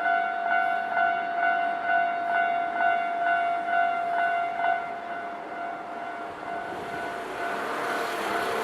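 Japanese level crossing warning bell ringing in even strokes about twice a second. The strokes fade into a steady tone, and from about seven seconds in the noise of an approaching train grows.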